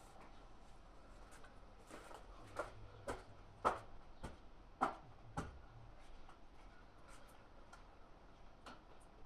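Zanussi FA623 washing machine running quietly: a faint low hum for about three seconds, with six sharp knocks about every half second, then only a few faint ticks.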